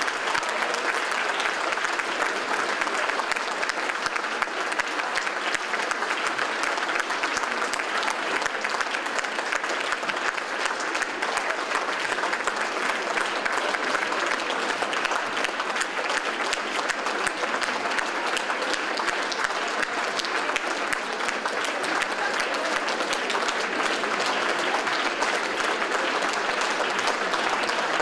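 Audience applauding steadily, a dense even clapping that holds at the same level throughout.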